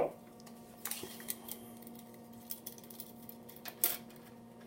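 Handling noise: a sharp knock at the start, then scattered light clicks and taps, with a louder pair of clicks about four seconds in, over a faint steady hum.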